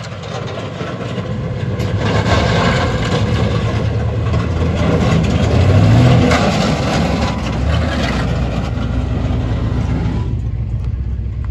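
A lowered square-body Chevrolet pickup drives past close by. Its engine and exhaust grow louder as it approaches, the engine note rises briefly as it passes nearest, and the sound then falls away.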